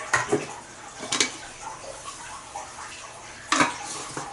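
Glass mixing bowl clinking and knocking as sticky dough is mixed and a jar is handled over it: three short sharp knocks, one near the start, one about a second in and one about three and a half seconds in, with quiet handling sounds between.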